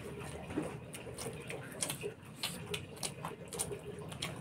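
Mouth smacks and wet chewing clicks from people eating food with their hands: a scatter of short, sharp clicks several times a second, irregular rather than even.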